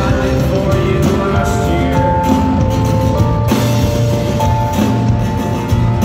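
A live rock band playing loud: drum kit, electric and acoustic guitars and bass, with a melody of long held notes over the steady beat.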